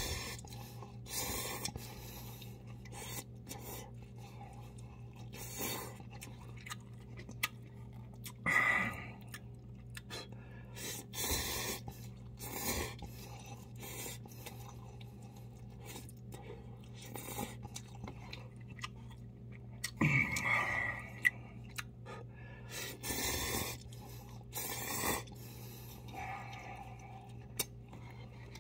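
A man slurping instant cup noodles and chewing them, with a dozen or so separate slurps of about half a second to a second each, spaced unevenly. A steady low hum runs underneath.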